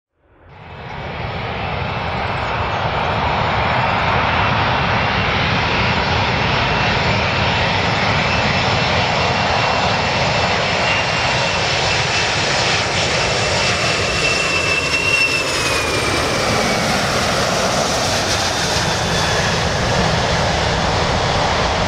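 Boeing 747-400 airliner on landing approach, its four turbofan engines running with a steady jet noise that fades in over the first couple of seconds. A thin high whine runs through it and slides down in pitch about two-thirds of the way through.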